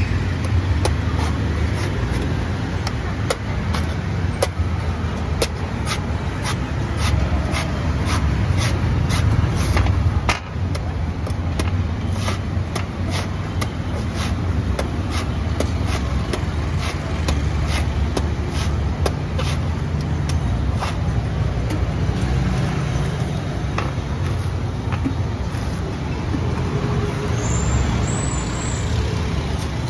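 Heavy cleaver chopping into the husk of a green coconut, sharp knocks about once a second, over a steady low rumble.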